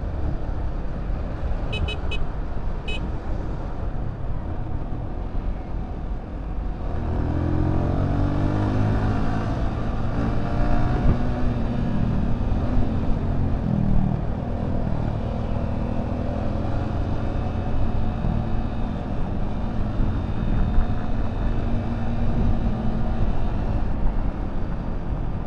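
Yamaha New Vixion Lightning's 150 cc single-cylinder engine heard from the saddle while riding, under a rushing noise of wind and road. About seven seconds in the engine note comes up strongly and then runs fairly steadily.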